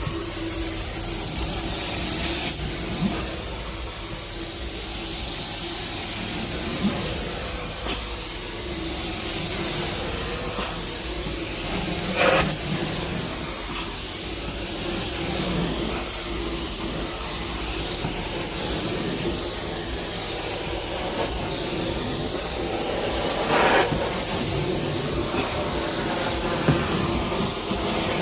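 Carpet-cleaning suction machine running steadily with a strong hiss as it works a carpet, with a couple of brief louder surges.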